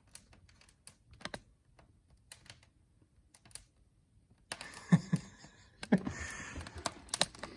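Wood fire of cherry and Osage orange crackling in a fireplace grate: sparse sharp pops at first, then a denser run of crackles over a hiss of flame from about four and a half seconds in.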